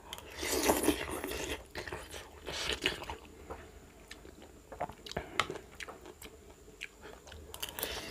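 A person eating close to the microphone: biting and chewing food, in a few noisy bursts with scattered short clicks between them.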